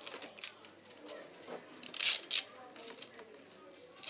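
Short, sharp scraping and scratching from a small knife worked by hand, with the loudest strokes a pair about two seconds in.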